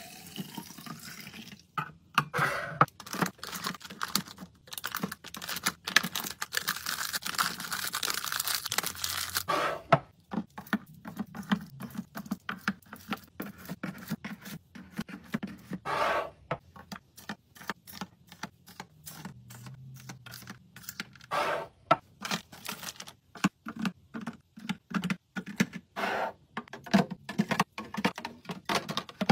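Containers and packaging clicking and tapping as they are handled and set down while restocking a fridge, many short irregular knocks. For a few seconds near the start there is a steady rushing noise, like liquid pouring or packaging rustling.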